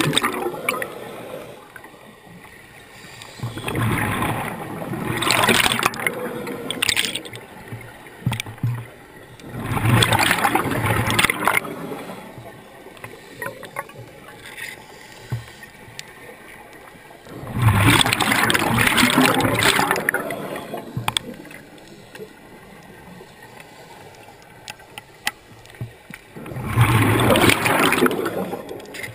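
A scuba regulator's exhaled bubbles rushing and gurgling past an underwater camera, in four breaths about seven to eight seconds apart. Faint scattered clicks are heard in the quiet between breaths.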